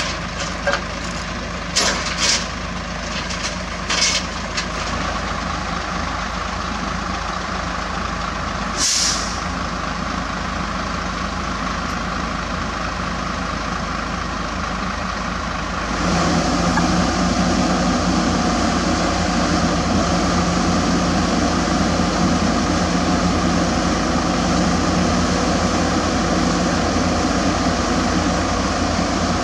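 Heavy diesel engine running steadily, with a few sharp metal clanks in the first few seconds and a short hiss of air about nine seconds in. About halfway through, a louder, steadier diesel idle takes over.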